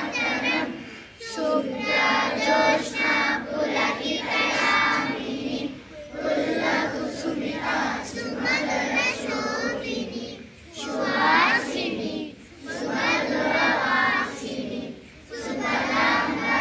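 A group of schoolchildren singing together in unison, line by line, with short breaks between the sung phrases.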